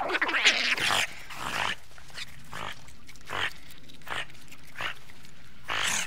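A group of otters calling: a dense burst of shrill squeals and chirps for the first second or so, then single short high calls every half second to a second.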